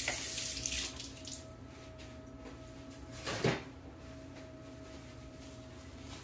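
Kitchen tap running as an avocado is rinsed under it, for about a second and a half, then a second short burst about three and a half seconds in.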